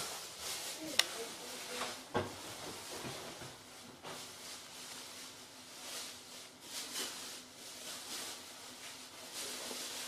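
Quiet small-bathroom room tone: a faint steady low hum under a hiss, with scattered clicks and knocks, the sharpest click about a second in and a knock about two seconds in.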